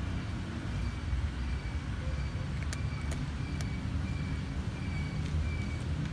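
A cat crunching dry kibble, with a few sharp crunches near the middle, over a steady low rumble of background noise.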